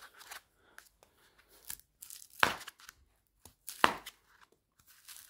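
White foam packaging sleeve being torn open by hand: soft crackling with two sharper rips, about two and a half and four seconds in.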